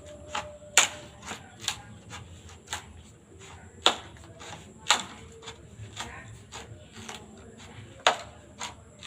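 Bamboo being split by hand: irregular sharp cracks and knocks, four loud strikes with lighter taps between.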